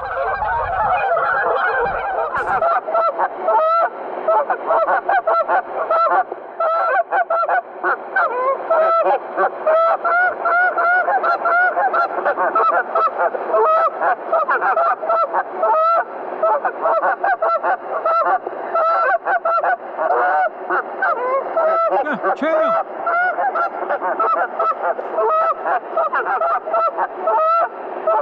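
A large flock of geese honking continuously, with many short calls overlapping without a break.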